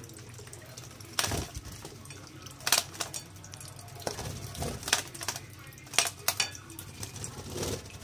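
Lovebirds bathing in a shallow glass dish on a tiled floor: sharp clinks and splashes several times at irregular intervals, the loudest a little after two and a half seconds and at about six seconds, over a faint steady trickle of water.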